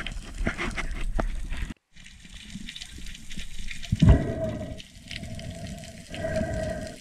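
Underwater sound around a diver's camera: water rushing and bubbling with scattered crackles and clicks, and a steady hum that comes and goes. The loudest rush comes about four seconds in, and the sound drops out for a moment just before two seconds in.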